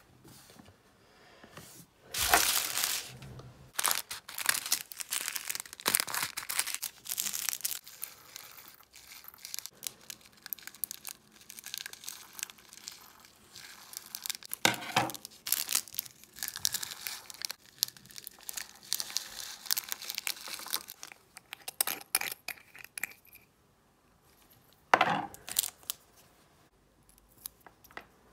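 Small clear plastic bags of square resin diamond-painting drills crinkling as they are handled and opened, with drills poured from a bag into a small glass jar. The sharp crackles come in spells, loudest a couple of seconds in, about halfway through and near the end.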